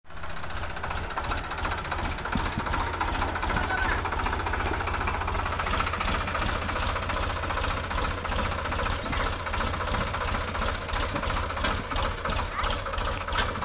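Sonalika DI-35 RX Sikander tractor's three-cylinder diesel engine running with an even pulsing beat as the tractor works over loose dirt.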